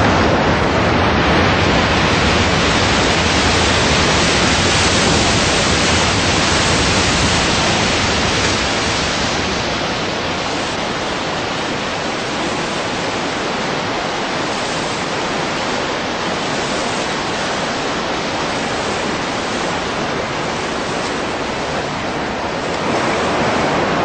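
Whitewater river rapids: a loud, steady rush of churning water, a little quieter from about ten seconds in and louder again near the end.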